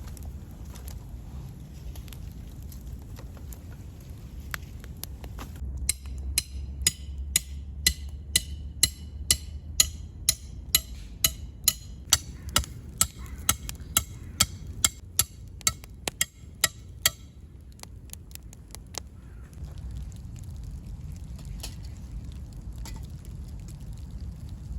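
A run of about two dozen sharp, evenly spaced knocks with a light ring, about two a second, starting some six seconds in and stopping about ten seconds later, over a low steady rumble.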